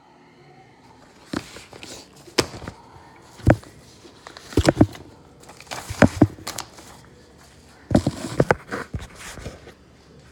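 Handling noise from the recording phone: a dozen or so irregular knocks and taps with rubbing in between, as it is moved about and set down.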